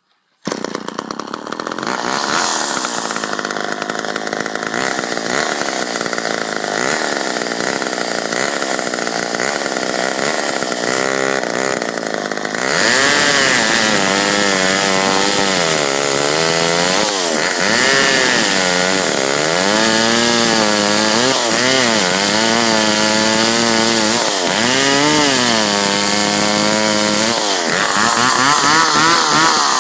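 McCulloch Mac 10-10 two-stroke chainsaw running at speed, cutting wood. From about 13 s in it gets louder and its pitch repeatedly sags and climbs back as the chain is loaded in the cut and freed again.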